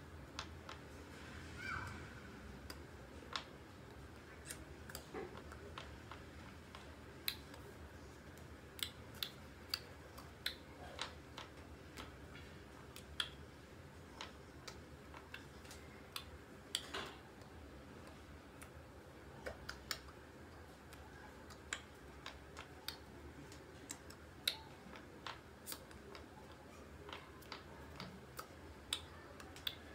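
Low steady hum with scattered faint clicks and taps, irregularly spaced, from a person's hands and mouth as he signs; no speech.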